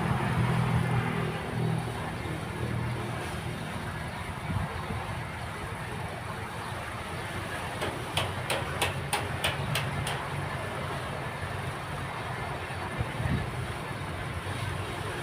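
Diesel engine of heavy construction machinery running steadily, with a quick run of about seven sharp metallic clanks a little past the middle.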